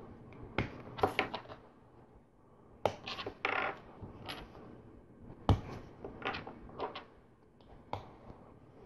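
Small plastic LEGO pieces clicking and tapping as hands press rubber tires onto wheel rims and snap parts together, in scattered irregular clicks with one sharper snap about five and a half seconds in.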